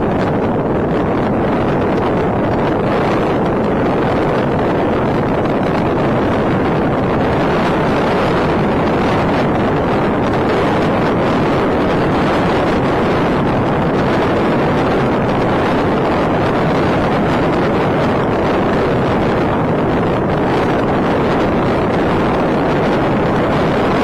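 Loud, steady wind noise on the built-in microphone of an ORDRO EP6 hands-free camcorder, an even rushing that never lets up; this camera picks up wind very strongly.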